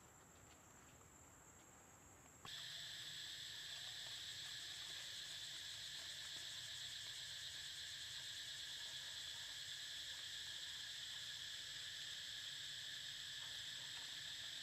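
Steady, high-pitched insect chorus with a fine rapid pulsing, starting abruptly about two and a half seconds in over faint outdoor background.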